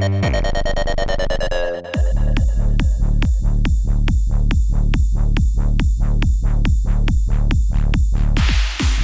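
Roland SH-201 synthesizer playing a trance preset: a sustained, fast-wobbling tone for about two seconds, then an even pulsing sequence of short plucked notes over a deep bass, about four a second. Near the end a hiss of noise fills in high above the pattern.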